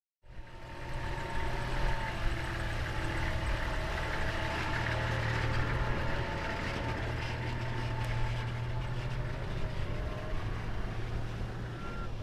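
A motor vehicle driving at a steady pace, with a low engine drone and road rumble. It starts abruptly and stays even throughout.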